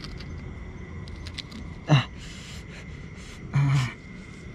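A man's short non-speech vocal sounds: a sharp gasp-like sound falling in pitch about two seconds in, and a brief low hum-like grunt near the end, over steady background noise.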